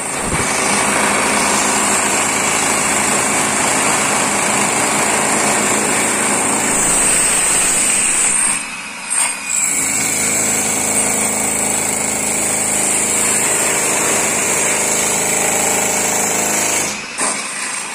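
Electric demolition breaker hammering through a reinforced concrete slab, a loud, continuous, rapid hammering that pauses briefly about nine seconds in and again near the end.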